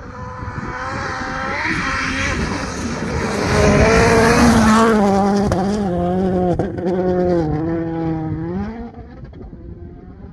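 Rally car going past at speed. The engine note rises to its loudest about four seconds in, wavers up and down as the car is driven on, then dies away near the end.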